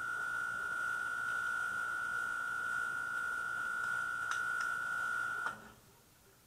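A steady, unbroken single tone with a few faint clicks about four seconds in; the tone cuts off suddenly with a click about five and a half seconds in.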